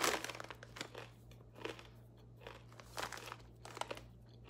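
A person biting and chewing crunchy filled pretzel nuggets close to the microphone: a run of short, crisp crunches, loudest right at the start.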